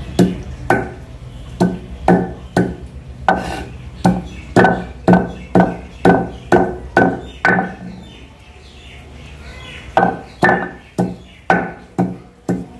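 Stone pestle pounding green and black cardamom pods on a stone grinding slab (shil-nora): sharp stone-on-stone knocks about two a second, with a pause of about two seconds past the middle before the pounding resumes. The pods are being crushed for a beef curry's spice mix.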